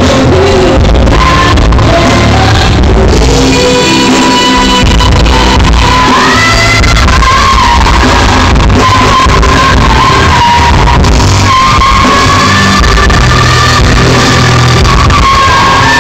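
A woman singing a ballad live into a handheld microphone over a live band with electric guitar and heavy bass, recorded very loud. The voice holds long notes, sliding between them, through the second half.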